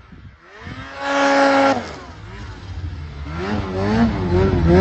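Snowmobile engine at high revs, holding a steady high pitch, then backing off a little under two seconds in. It then revs up and down over and over as the sled plows through deep powder, getting louder toward the end.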